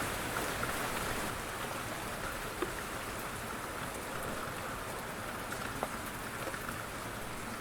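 Light rain falling steadily, an even hiss with occasional individual drops ticking, a couple more distinct about two and a half and six seconds in.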